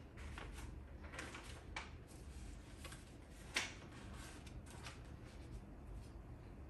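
Faint rustling of loose sheets of paper music being handled and set on a music stand, with one sharper, louder rustle about three and a half seconds in.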